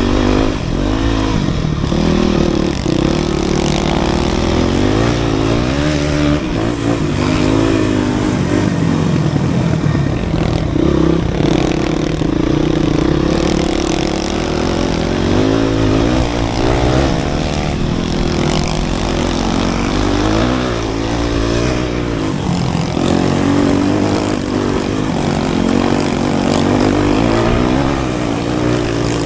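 Off-road dirt bike engine running hard on a trail, heard close from the bike itself, its pitch rising and falling again and again as the throttle is opened and eased off.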